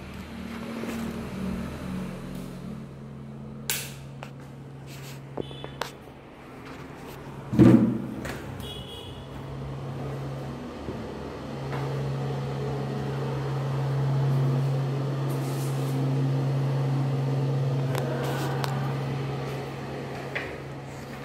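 A steady low hum that fades around seven seconds in and returns louder about twelve seconds in, with scattered sharp clicks and one loud thump about eight seconds in.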